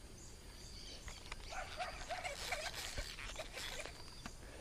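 An animal's short calls, about half a dozen in quick succession a couple of seconds in, over a steady outdoor hiss with a few sharp clicks.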